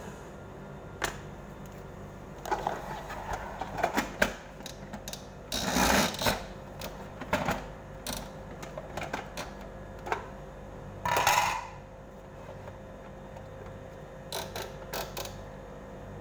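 Plastic clicks, knocks and clatter as a white plastic citrus juicer and its parts are set down and handled on a counter, with two short rustling bursts, one a little before the middle and one about two-thirds through.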